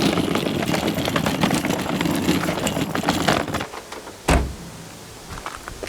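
Fiat 126's two-cylinder engine being started from cold after weeks of standing, turning over with a dense, clattering sound, then cutting out abruptly about three and a half seconds in; a single loud thump follows. The car is hard to start and dies again soon after catching.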